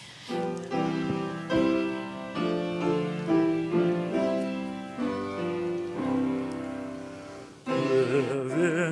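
Grand piano playing the hymn tune in full chords as the introduction to a hymn. Near the end, voices with vibrato come in singing the first line.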